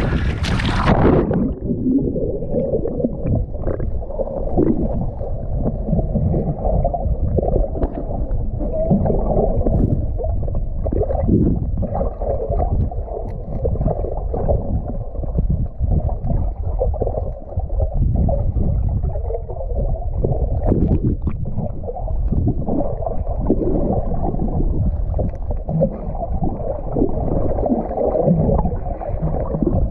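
Muffled gurgling and churning of water, as heard by a camera held underwater. The sound goes dull about a second in, everything high is cut away, and an uneven low rumble carries on.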